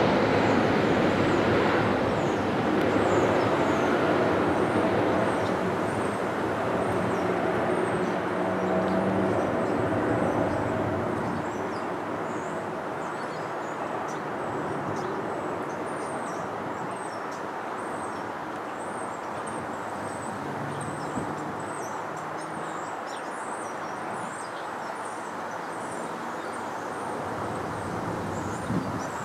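Airbus A380 jet engines on approach to land, with gear down, passing overhead with a steady, loud roar that fades after about ten seconds as the airliner moves away.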